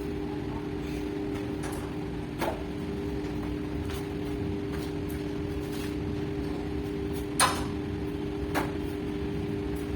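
Weight plates being loaded onto a barbell: a few sharp metal clanks, the loudest about seven and a half seconds in, over a steady hum.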